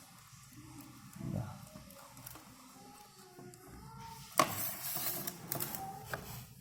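Hands handling plastic door-mirror parts and their wiring: light rustling, then a sharp click about four and a half seconds in, followed by a second of scraping rustle and a few smaller clicks.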